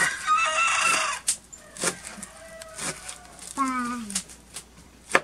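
A rooster crowing in the first second or so, with a few sharp knocks scattered through the rest.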